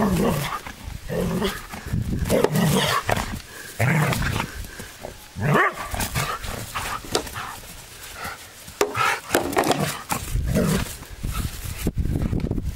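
Ibizan hound making short barks and vocal sounds at irregular intervals, with clicks and knocks between them.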